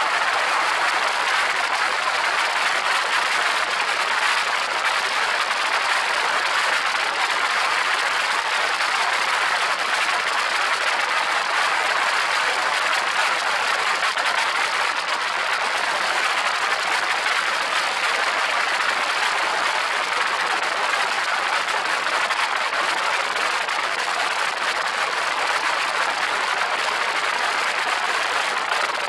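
Steady rushing of the slipstream and engine of an open-cockpit light aircraft in flight, an even hiss-like noise with no change in pitch or level.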